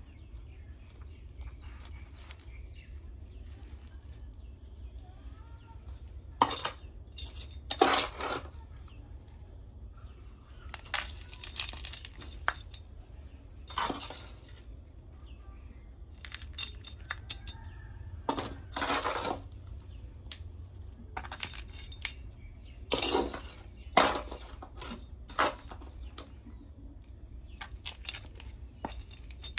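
Gravelly potting soil being scooped and poured with a small garden trowel around a bonsai's roots, in short scraping, crunching bursts every few seconds over a low steady hum.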